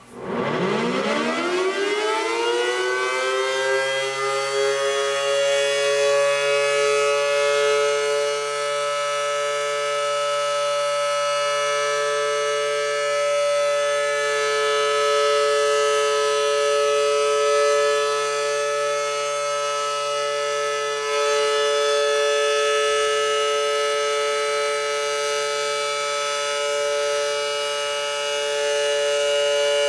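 Federal Signal Model 5BT outdoor warning siren winding up from a standstill, its pitch climbing over about two seconds, then holding the steady alert signal. Two tones sound together as a chord.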